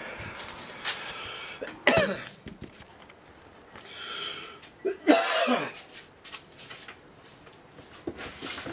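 A man coughing twice, about 2 seconds in and again, louder, about 5 seconds in.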